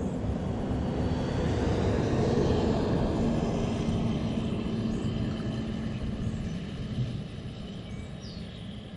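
Propeller airplane passing overhead: a steady engine drone that swells over the first couple of seconds and then slowly fades.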